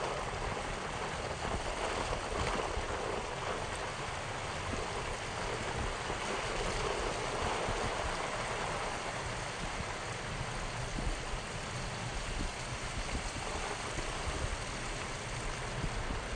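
Steady, watery rushing of tyres rolling through slush on a snow-covered street, heard from a slowly moving car.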